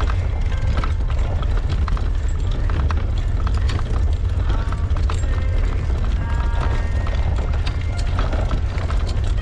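Handcycle rolling over cobblestones: steady clattering and rattling from the tyres and frame, with a continuous low rumble from wind on the mounted microphone.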